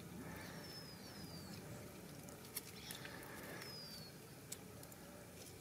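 Quiet outdoor ambience with a bird giving a few short falling chirps, and faint clicks and drips from a lemon half squeezed by hand over raw chicken in a metal pan.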